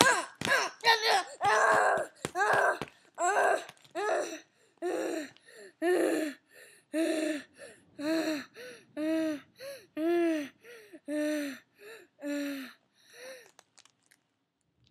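A young boy's voice making a long string of short, wordless pitched cries, about two a second, loud at first and growing fainter until they die away near the end.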